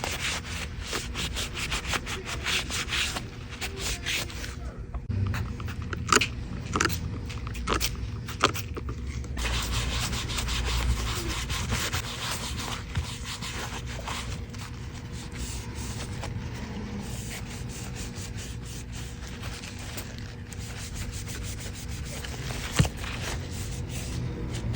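Rapid scrubbing and rubbing against a dirty phone case, a dense scratchy sound with a few sharp clicks and knocks along the way, as the grime is cleaned off.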